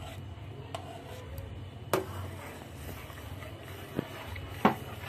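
A ladle stirring a milk and agar-agar mixture in a steel pot, clinking against the pot's side four times. The clinks are loudest about two seconds in and near the end, over a steady low hum.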